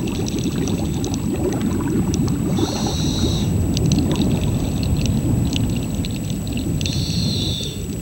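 Underwater ambience: a steady, low watery rumble with scattered faint clicks and two short hisses, one a little under 3 seconds in and one near the end.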